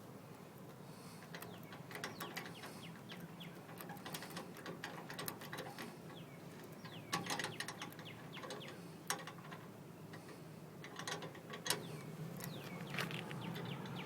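Lock pick and tension wrench working the pins of a trailer hitch lock: irregular small metallic clicks and scrapes as the rake is worked in the keyway, over a low steady hum.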